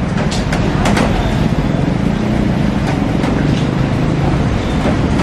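Heavy rain drumming on a glass roof, a steady dense hiss with a few sharper drop hits in the first second.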